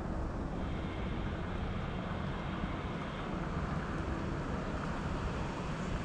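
Steady low rumble of a distant engine, with a faint even hum.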